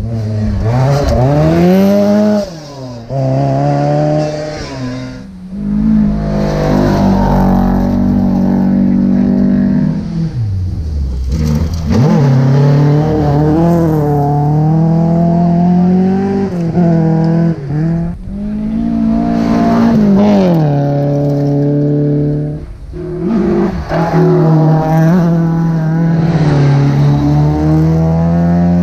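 Rally car engine driven hard at full throttle, its pitch climbing through each gear and dropping sharply at the gear changes and lifts, heard from inside the cockpit.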